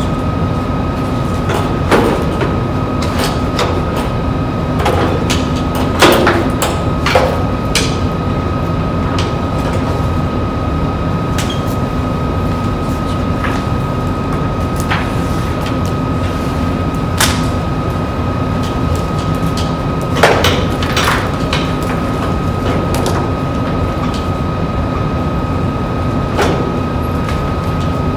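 A steady hum with a faint high whine, overlaid by irregular clacks and knocks, a few of them sharp, as the parts of a table tennis robot and its ball-catch net are handled and set up.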